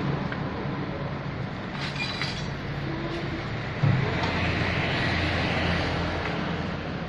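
Diesel engine of a Komatsu PC78UU excavator running with a steady low drone, jumping sharply louder about four seconds in as it takes load.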